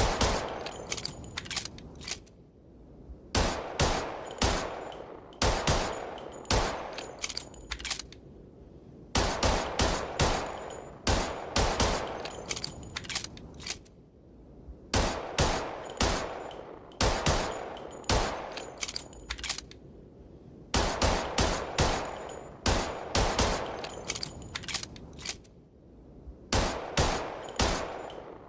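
Colt M1911 pistol firing in quick strings of several shots, each shot with an echoing tail, with pauses of about a second between strings.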